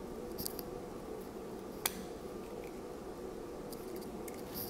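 Small plastic clicks and handling sounds from a dashcam's suction-cup windshield mount being turned and worked in the hands. The sharpest click comes just under two seconds in, over a faint steady hum.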